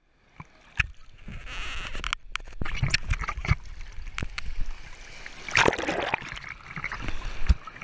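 Seawater splashing and sloshing against a handheld waterproof camera in the shallows, with many small knocks and bumps from the camera being handled; a louder splash comes a little after five seconds in.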